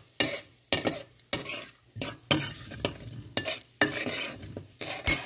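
Metal spoon scraping and clinking against a stainless steel pan, about three strokes a second, as it stirs whole spices frying in hot oil with a light sizzle underneath: the spices being tempered in the oil.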